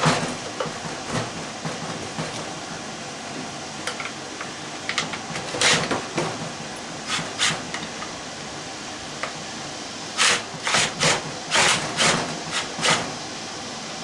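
Wrench worked on a rusted bolt of a hot tub pump motor: a sharp metal click, scattered clicks and scrapes, then a quick run of about seven short rasping strokes near the end as the bolt refuses to turn.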